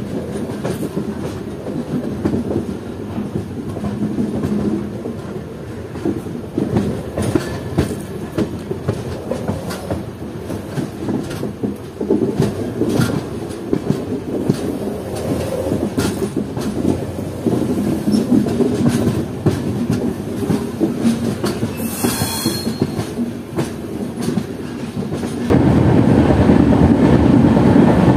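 Cholan Superfast Express passenger train running on the line: a steady rumble with the clickety-clack of wheels over rail joints. There is a brief high-pitched squeal a little past the middle, and the rumble steps up louder about three seconds before the end.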